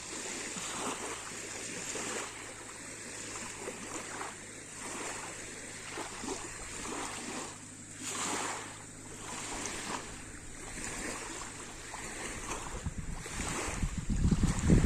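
Lake water splashing and lapping at the shore in small waves that swell and fade every second or two. Wind rumbles on the microphone, growing near the end.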